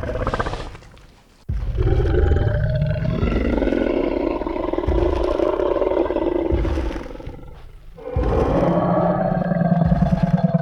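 Tyrannosaurus rex roar sound effect: a short burst, then a long roar of about six seconds that tails off, and a second roar starting about eight seconds in.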